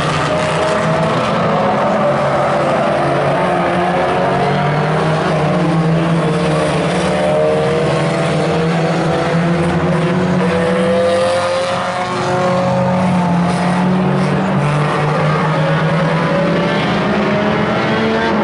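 Engines of several banger-style racing cars running and revving together as the pack laps a short oval, their pitches rising and falling as the cars accelerate and lift.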